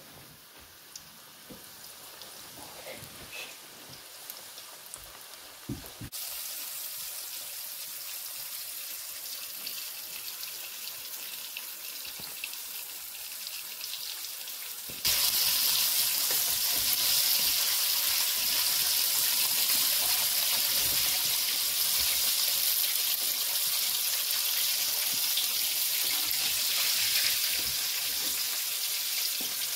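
Flour-coated chicken pieces deep-frying in hot oil: a steady sizzling hiss that grows louder in two sudden steps, about six seconds in and again about halfway through.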